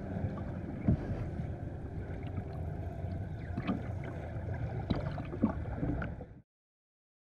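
Underwater noise: a steady low rumble with a few short, sharp clicks scattered through it. It cuts off suddenly about six seconds in.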